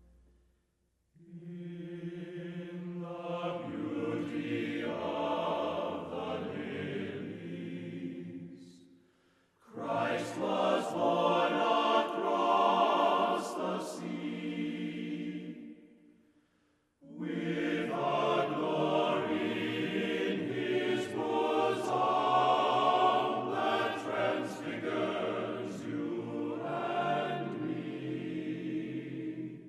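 Background music of slow, sustained tones in three long phrases, each fading out into a short pause before the next begins.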